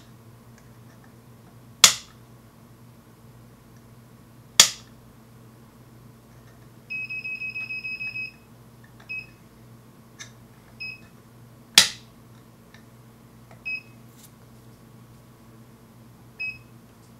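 Klein Tools MM2000 multimeter: its rotary range selector clicks sharply as it is turned, about 2, 4.5 and 12 s in. The meter's beeper sounds a buzzing beep of over a second about 7 s in, then short single beeps as its buttons are pressed, with a few faint button clicks.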